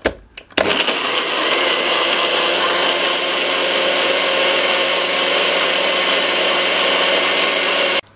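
NutriBullet blender's motor running steadily at full speed, blending leafy greens, berries and water into a smoothie. It starts after a couple of clicks as the cup is pressed down onto the base and cuts off suddenly near the end, when the cup is released.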